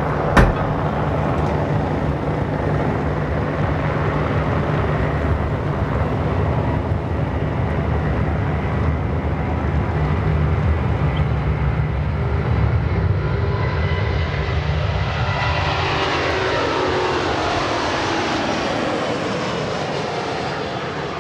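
Boeing 787-9 jet airliner's turbofan engines at takeoff power: a steady rumble and hiss through the takeoff roll, then a whine that sweeps down in pitch over the last several seconds as the plane lifts off and passes overhead. A single sharp click about half a second in.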